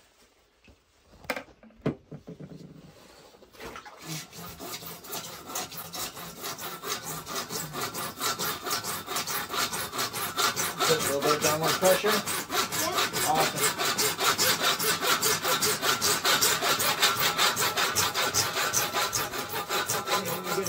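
Hand saw cutting through a white PVC pipe. A couple of knocks come in the first two seconds, then steady back-and-forth sawing strokes start about four seconds in and grow louder.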